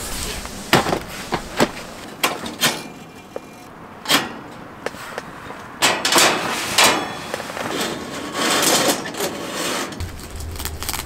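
Camp gear being handled: a scattered series of sharp knocks and clicks as a plastic folding crate is set down and the heater is handled, then canvas side-wall fabric rustling near the end.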